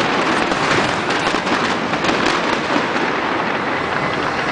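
A large professional fireworks display, with many shells bursting at once in a dense, continuous crackle.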